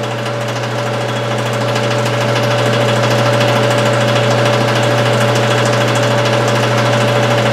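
Steady mechanical hum and running noise of a vacuum-tube exhaust machine with its vacuum pump, mixed with the hiss of a small hand torch's flame playing under the glass bulb during tip-off; the noise grows a little louder over the first couple of seconds.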